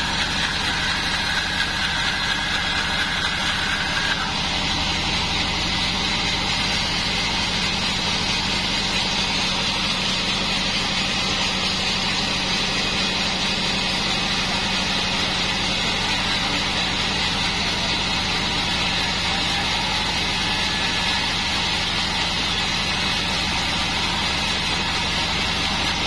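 Bandsaw mill running steadily with a constant low hum. A higher whine from the blade cutting the Bayur wood stops about four seconds in, when the cut ends.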